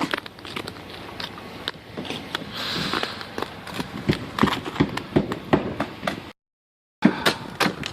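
Ice being chipped off a car: a string of sharp, irregular knocks and cracks, with a short scraping hiss about three seconds in. The sound cuts out for under a second near the end, then the knocking resumes.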